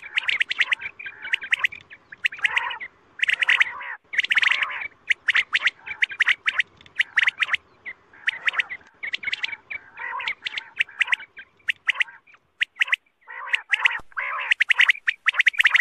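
Quail calling: fast, rattling bouts of short, sharp notes, each bout lasting about a second with brief gaps between, the kind of call used to lure quail.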